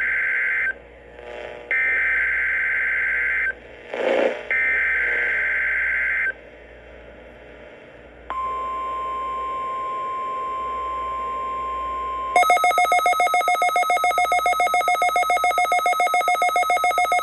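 NOAA Weather Radio weekly test alert. Three screechy digital SAME header bursts play, each under two seconds, then the steady 1050 Hz warning alarm tone. About twelve seconds in, a weather radio receiver's own alarm starts, a loud, rapid pulsing beep with several pitches, set off by the test.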